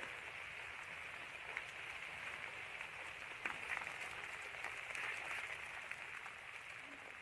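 Volcanic ash mixed with sand falling heavily during a Merapi eruption: a steady hiss with scattered small ticks, a few sharper ones about three and a half seconds in.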